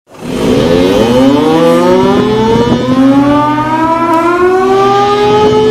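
Hockey goal horn sounding: it starts abruptly with a siren that winds slowly and steadily upward in pitch over a steady low drone.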